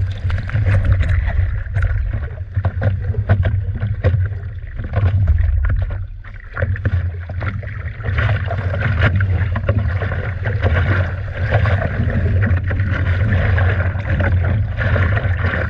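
Stand-up paddleboard riding a wave: water rushing under the board and spray splashing over it, with many short sharp splashes of chop and a heavy low rumble of wind and water on the microphone. It eases off briefly about six seconds in.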